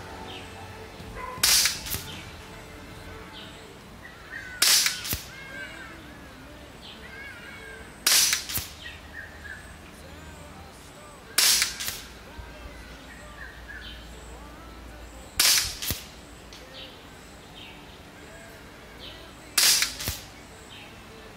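Kalibrgun Springbok 5.5 mm PCP air rifle firing six shots about three to four seconds apart. Each is a sharp crack followed a moment later by a fainter knock. It is shooting 18.13-grain JSB pellets at about 940 feet per second on the factory regulator setting of 120 bar.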